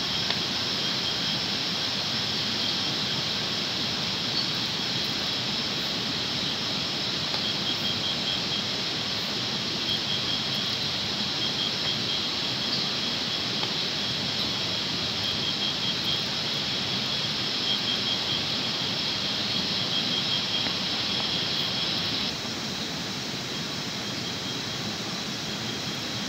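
Night insects trilling in a steady chorus, with an even pulsing chirp, over a constant rushing noise. Part of the insect chorus stops about three-quarters of the way through.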